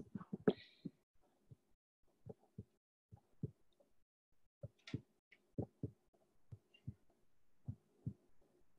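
Faint, soft low thumps at irregular intervals, about one or two a second, with a faint steady hum under them for a few seconds in the second half.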